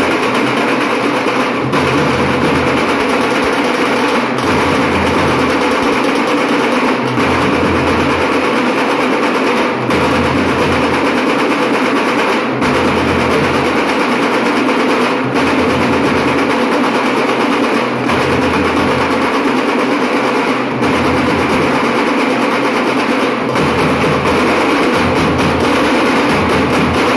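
Dhol-tasha troupe playing: many dhol barrel drums and tasha drums beaten together in a loud, continuous, steady rhythm.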